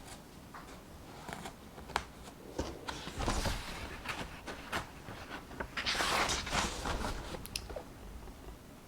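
Paper rustling as book pages are turned: two longer swishes, the second louder, among small taps and clicks.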